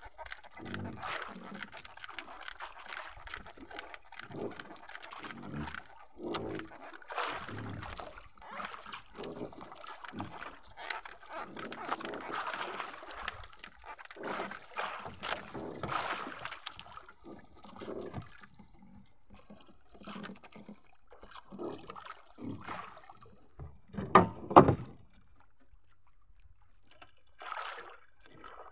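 Water splashing and sloshing around a small wooden fishing boat, with irregular knocks and bumps on the hull. The sound quiets about two-thirds of the way through, then two loud knocks come in quick succession.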